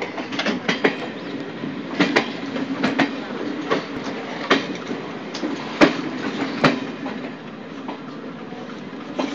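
Dainik Superfast Express passenger train pulling out slowly, its wheels giving irregular sharp clanks and knocks over the rail joints above a steady rumble. The clanks grow sparse after about seven seconds.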